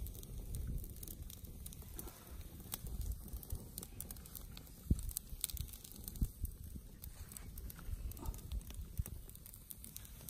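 Rustling and scattered light crackles and clicks of dry grass stems and twigs being handled and snapped, over a low rumble.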